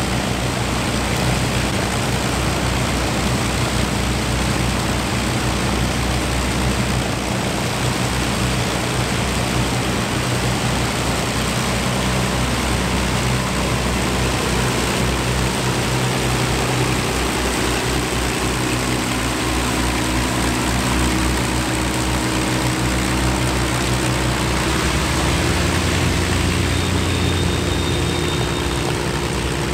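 Avro Lancaster bomber's four Rolls-Royce Merlin V12 piston engines running at low power with propellers turning as it taxis past. The engine note changes a few seconds before the end as the aircraft comes close.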